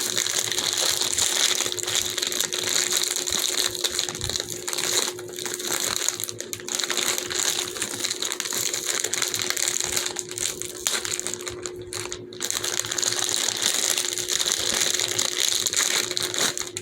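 Continuous crinkling and crunching of something handled close to the microphone, with a steady low hum underneath.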